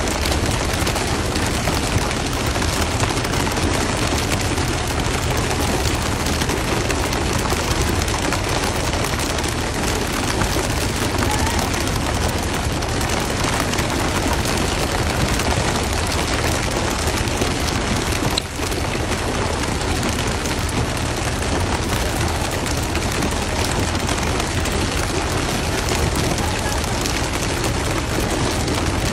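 Steady, loud rushing noise on a fishing boat at sea: wind buffeting the microphone and splashing water over a low rumble.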